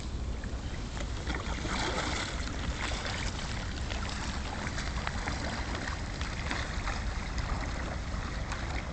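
Kayak paddle strokes splashing in calm water, with water lapping and dripping in many small irregular splashes over a steady low rumble.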